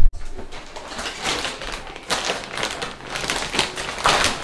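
Rustling and quick tapping clicks of a shopping bag and its products being handled, louder near the end.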